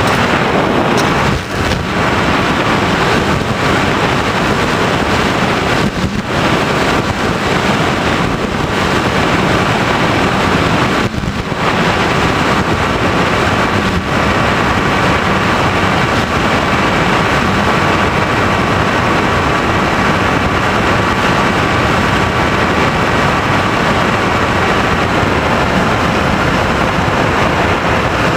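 Onboard audio of an FPV model plane in flight: steady wind rush over the microphone with a faint, even whine from its motor and propeller, which fades out near the end.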